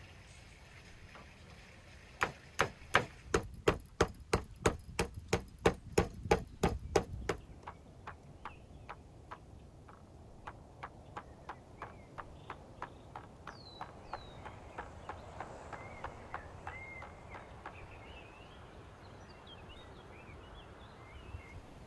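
A kitchen knife chopping raw beef heart on a wooden cutting board: a fast, even run of loud chops at about five a second for several seconds, then softer, slower chops. Birds chirp over the later part.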